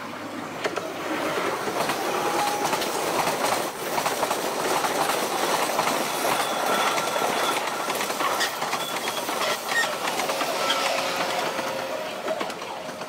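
A loud, steady rushing noise with scattered clicks and short high squeals. It swells about a second in and eases off near the end.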